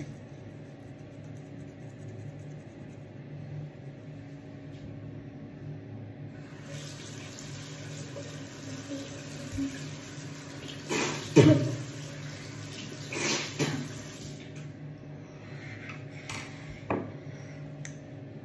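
Bathroom tap running into a small sink for about eight seconds while he rinses after brushing his teeth, with two louder splashes about halfway through.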